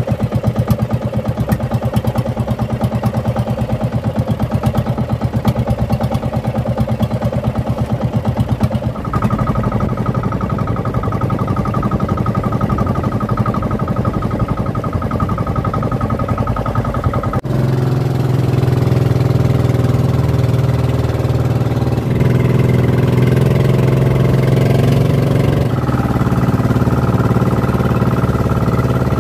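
Fishing boat's engine running steadily again after its breakdown, which the crew put down to an airlock and moisture in the fuel tank. Its note shifts about nine seconds in and grows louder about seventeen seconds in.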